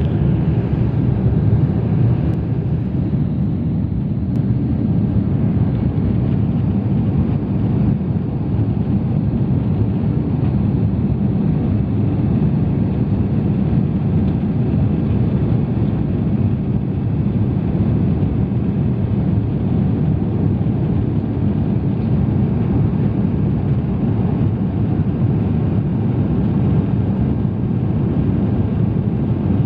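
Steady roar of jet engines and rushing air inside an airliner cabin in flight.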